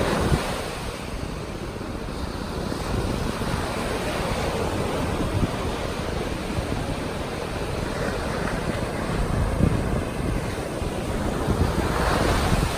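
Sea waves washing onto the shore, swelling and easing, with wind rumbling on the microphone.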